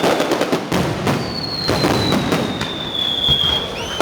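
Aerial fireworks display: dense, rapid crackling bursts throughout. A high whistle starts about a second in and slowly falls in pitch until past three seconds.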